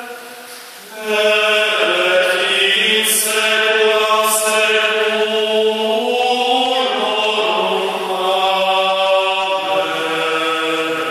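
Small male vocal ensemble singing a cappella in harmony, holding long sustained chords. A new phrase enters about a second in after a brief lull, and the lowest voice steps down near the end.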